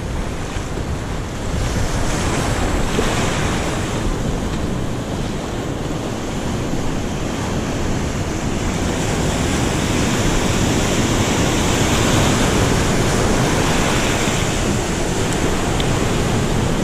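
Ocean surf washing and foaming over shoreline rocks, a steady rush that grows a little louder partway through.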